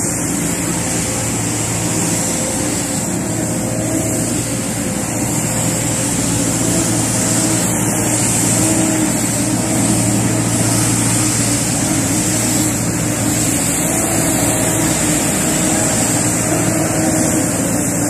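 Steady street traffic noise with a low, constant engine hum from idling buses and passing vehicles.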